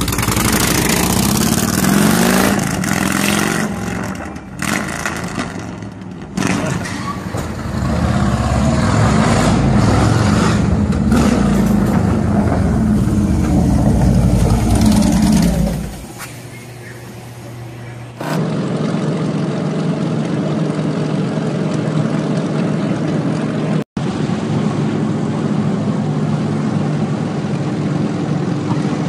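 Harley-Davidson V-twin motorcycle engine running and revving as the bike pulls away, its pitch rising and falling, then fading about sixteen seconds in. After a cut a couple of seconds later, a steady engine drone of a chopper motorcycle running at highway speed.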